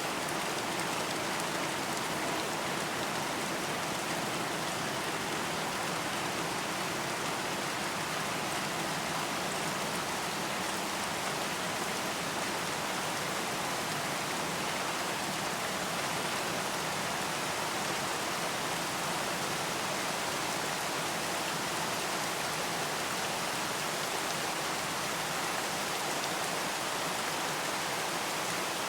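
Steady rain falling and pattering on a surface, an even hiss with fine drop patter that does not change.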